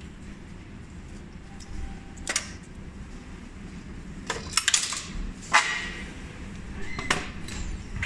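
Sharp metallic clinks and plastic knocks from handling mechanical coin-operated vending machines and their coin-filled trays, about six in all, several close together near the middle, some with a brief ring.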